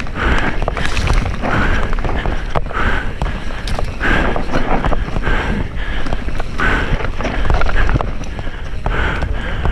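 Mountain bike descending a rough dirt trail at speed: wind rushes over the microphone, with a constant rattle of short clicks and knocks from the bike over the ground.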